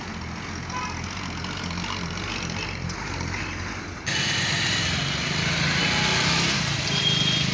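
Steady street-traffic hum with a low engine drone; about four seconds in it jumps louder to riding a motorcycle through town traffic, the engine running under a wind rush, with a brief high beep near the end.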